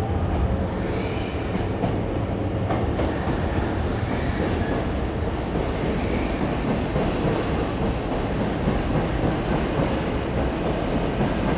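Hankyu electric commuter train moving along the platform, a steady running rumble with wheels clicking over the rail joints.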